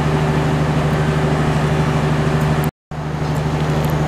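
Steady low hum of an idling diesel engine on a passenger train standing at the platform. It drops out briefly about two and a half seconds in, where the recording is cut, then carries on.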